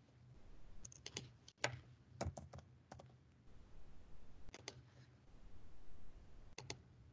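Faint computer keyboard typing and clicking: scattered single keystrokes and short runs of two or three, with pauses of up to a second and a half between them.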